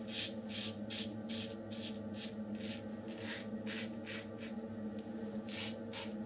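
RazoRock German 37 Slant safety razor scraping through lathered stubble in quick short strokes, about four a second, with a pause of about a second before the strokes resume near the end. A steady low hum runs underneath.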